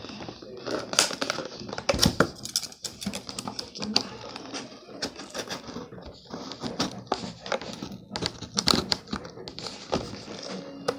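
Scissors snipping at an action figure's cardboard-and-plastic blister package while it is handled: a dense, irregular run of sharp clicks, snips and crinkles.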